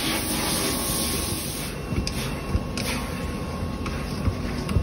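Steady hiss and hum of car-wash equipment running. The hiss drops away after about a second and a half, then a few light knocks and clicks follow.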